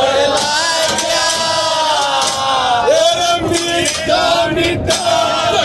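A group of men singing a Haryanvi ragni loudly together in a rough chorus, with hand clapping.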